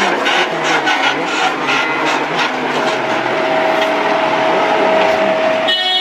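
A JCB telehandler running with a bucket-mounted spreader attachment working: a steady, loud mechanical noise, with a steady whine through the middle. The sound changes to a different pitched machine tone near the end.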